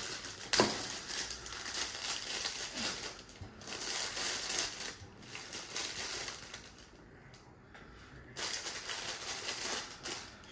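Plastic bag crinkling and rustling as green chillies are picked out of it by hand, with a brief lull near the end before the rustling starts again.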